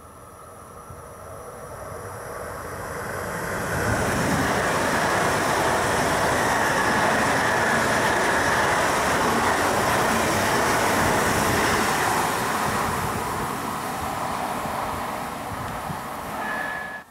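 Three coupled DB class 423 S-Bahn electric multiple units passing close by. The rush of the train swells over the first few seconds, holds loud for several seconds, then fades as the train runs away down the line. A short high tone sounds near the end before the sound cuts off suddenly.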